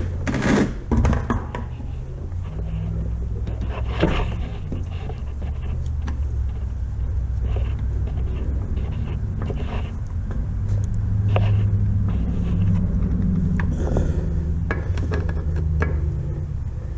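A steady low rumble, with a few short clicks and scrapes of a screwdriver driving the drain screw into an outboard's lower gearcase.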